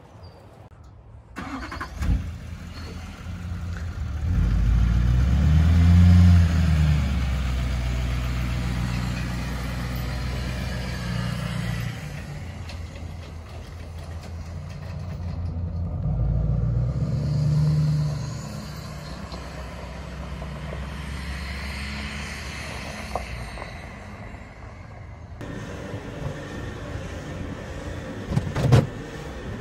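Pickup truck engine running as it tows a loaded trailer away, swelling twice as it pulls off and picks up speed. A couple of sharp knocks come near the end.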